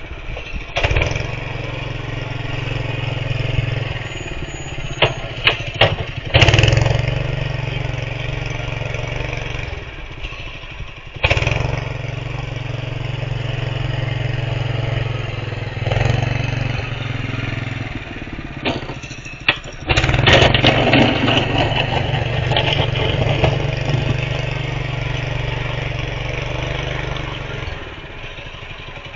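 Honda GX160 single-cylinder four-stroke engine on a home-built hydrostatic snow plow running steadily under load as it pushes snow, with several sharp knocks and clatters at times and a louder, rougher stretch about two-thirds of the way through.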